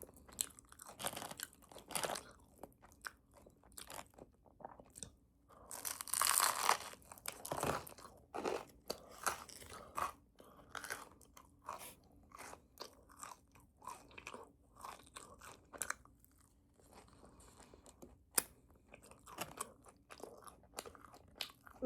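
Chewing a crunchy bagel: a steady run of short, crisp crunches, with a louder, longer stretch of crunching about six seconds in.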